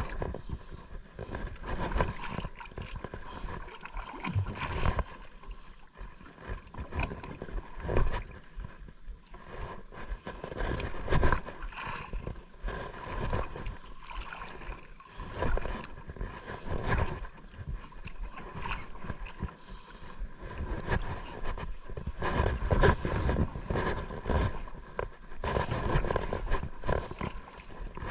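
Sea water sloshing and slapping against a small outrigger boat's hull in irregular surges, with wind buffeting the microphone.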